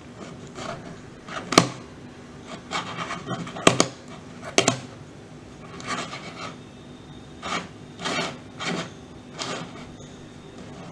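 Plastic layers of a 6x6 Rubik's cube being turned and handled: irregular scraping swishes and clicks, with a few sharper clacks in the first half.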